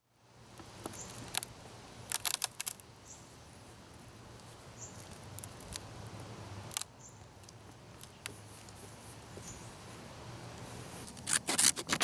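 Pliers of a Leatherman Rebar multitool gripping and working a rusted nail sunk deep in old wood: faint, scattered sharp clicks and scrapes over a low steady hum. Near the end comes a quick run of louder sharp clicks.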